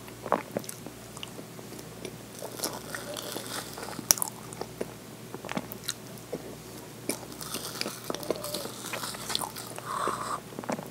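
Close-miked mouth sounds of eating soft tiramisu by the spoonful: wet, sticky chewing and smacking in irregular short clicks, with light clicks of a spoon in a plastic dessert cup.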